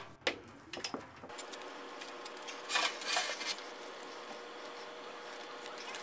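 Rustling and rubbing of a bundle of black network cables as they are handled and coiled, with a few light knocks in the first second and a louder rustle about three seconds in.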